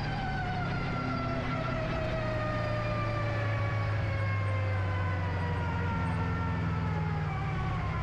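Vehicle engine running with a steady low hum, under a higher tone that falls slowly in pitch over several seconds.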